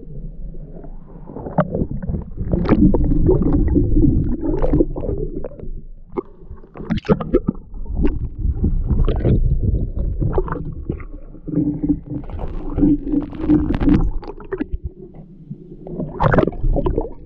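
Water sloshing and gurgling around a camera held at the waterline, with irregular splashes and bubbling as it dips under the surface and back out.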